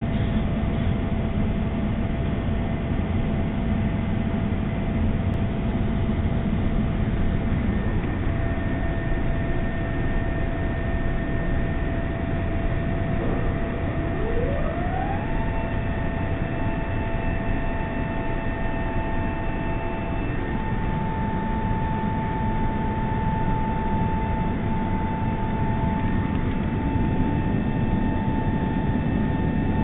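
Steady cabin noise inside an Airbus A380 in flight: a constant rush of engine and airflow noise with a few faint steady whines over it. About halfway through, one whine rises in pitch and then holds.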